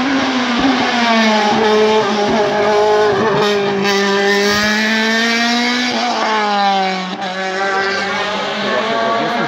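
Open-wheel single-seater race car's engine running hard at high revs as it climbs past, its pitch falling about seven seconds in.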